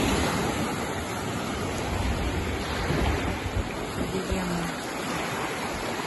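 Small Mediterranean waves breaking and washing up the sandy shore: a steady wash of surf, with a low rumble of wind on the microphone.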